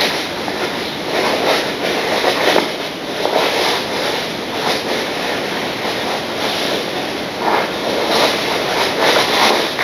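Model railway train running on the layout's track: a steady rattling rush with irregular louder clicks.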